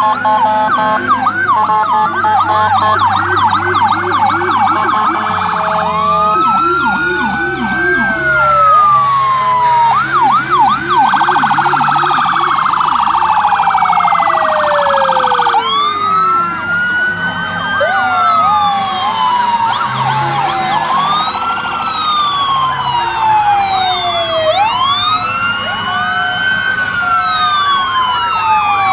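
Several fire engine sirens sounding at once, overlapping: quick repeating yelps at first, then slow wails that climb in pitch and fall away again, over and over.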